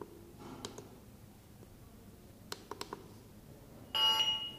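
Rehabor K3 Pro wall-mounted infrared thermometer: a few quiet clicks as its front buttons are pressed, then about four seconds in one short, loud electronic beep as it completes a temperature reading, with its voice announcement switched off.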